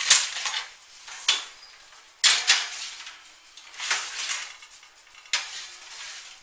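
A round metal baking pan clanking against the wire racks as it is set into an open oven. About five sharp metallic clanks with short ringing, spread a second or so apart.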